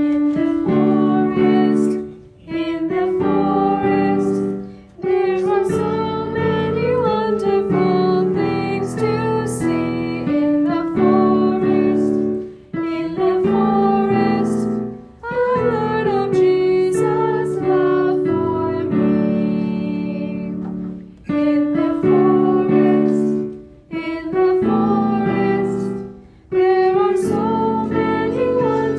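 A children's song played on piano, in phrases of about two to three seconds broken by short pauses.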